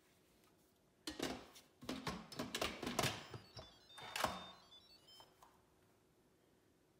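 An Instant Pot being shut and set going: a run of clatters and knocks, the loudest about two and three seconds in, with a short electronic chime of stepped beeps a little after three seconds.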